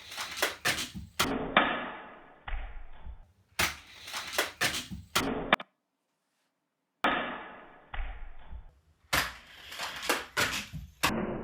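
Sharp plastic clacks and snaps from a Nerf blaster firing and Hot Wheels cars hitting the track and launcher, in several short bursts of quick impacts. The bursts break off abruptly, with about a second of silence in the middle.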